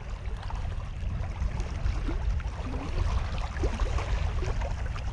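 Wind buffeting the microphone: a steady, uneven low rumble, with a few faint short chirps over it.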